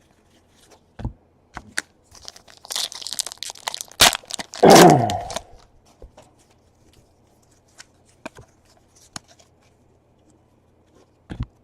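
A foil pack of 2017 Donruss baseball cards being torn open. Crinkling wrapper comes about two and a half seconds in, then a sharp click and a louder tearing sound that falls in pitch. Scattered light taps of cards being handled follow.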